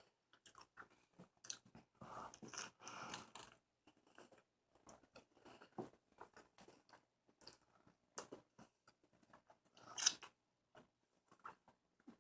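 Close-miked chewing of a burger: faint wet mouth clicks and small bites in scattered short bursts, with a louder burst about ten seconds in.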